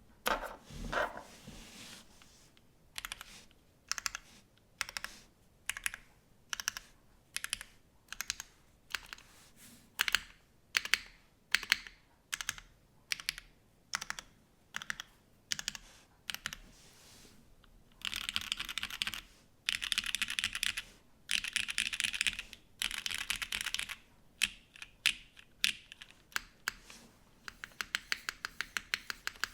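Mechanical keyboard with Cherry MX Black linear switches, lubed and filmed, on a plateless gasket-mounted Arc60 board with GMK keycaps: single keystrokes struck one at a time, then about 18 seconds in, quick rolls across the home-row keys (asdfghjkl) in several bursts, and near the end a fast even run of about ten clicks a second.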